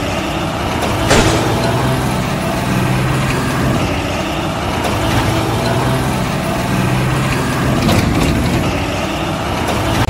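Steady truck-engine running sound from a toy dump truck: a level low hum with a mechanical rattle over it, and a brief rustle about a second in.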